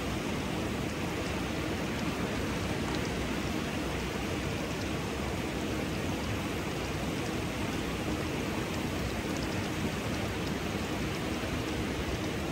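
Steady rush of flowing water from a small waterfall, with a few faint scattered drips.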